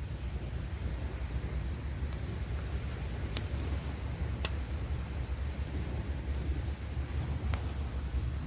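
Wood fire burning with a few sharp crackling pops, three of them clearest, over a steady low rumble of sea waves.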